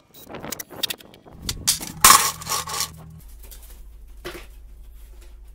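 Greenworks cordless drill driving screws into a chipboard base: a few clicks and knocks, then the drill motor whirs for about two seconds, with a louder harsh burst partway through as the screw is driven. A low steady hum follows near the end.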